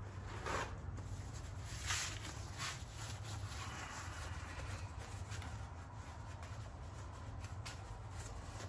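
Quiet room tone: a steady low hum, with a few brief soft rustles in the first three seconds.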